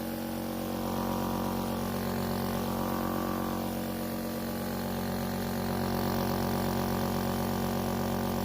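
Steady machine hum made of many held tones, rising slightly in level about six seconds in.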